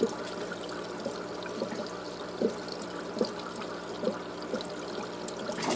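Water trickling, with irregular drips or bubbles popping about once or twice a second over a steady low hum.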